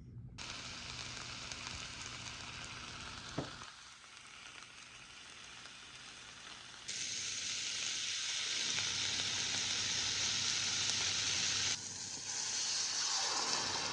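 Food sizzling and frying in a hot pan, a steady crackling hiss that jumps abruptly louder about halfway through and dips briefly near the end.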